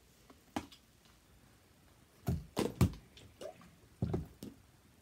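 Hands working sticky slime on a table: a light knock near the start, then a run of loud wet slaps and squelches from about two to four and a half seconds in as the slime is pressed and slapped flat. The slime is made stickier with Dial hand soap.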